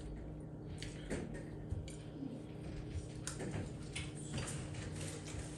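Close-miked eating sounds: scattered wet mouth clicks and lip smacks at irregular intervals while eating seafood boil with the fingers.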